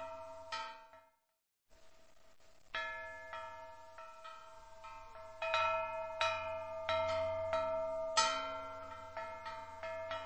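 Large steel lighthouse-shaped wind bell being struck again and again, each strike leaving long ringing tones that blend its three pitches. The sound cuts out for about half a second shortly after the start, then the strikes resume, coming more often and louder in the second half.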